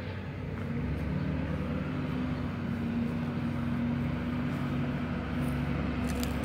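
Steady low engine hum from a motor running in the background, holding an even pitch throughout.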